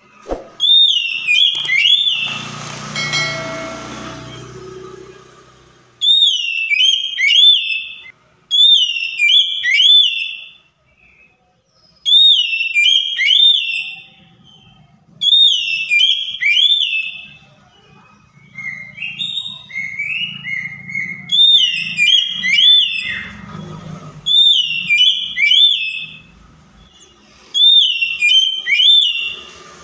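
Oriental magpie-robin singing: loud phrases of sweeping whistled notes, repeated about every two to three seconds. A short stretch of harsher noise comes between the first phrases about two seconds in.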